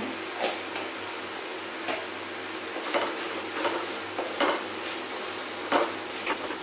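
Thick onion-tomato masala sizzling in a stainless steel kadai, stirred with a wooden spatula that scrapes and knocks against the pan about seven times.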